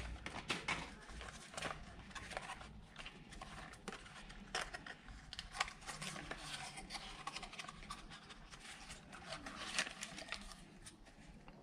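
Cardboard box and its paper insert being handled and opened by hand: irregular rustles, scrapes and small clicks.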